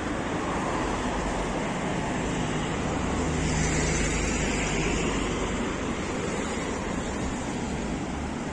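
Road traffic on a city street: cars passing with engine hum and tyre noise, swelling louder about halfway through as a vehicle goes by. Wind rumbles on the microphone.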